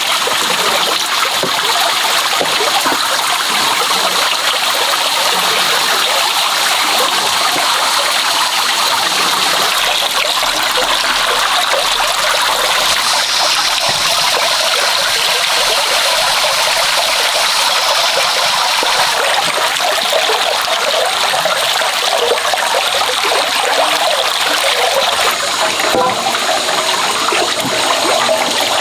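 Water running steadily from a bamboo pipe and splashing into a full metal basin.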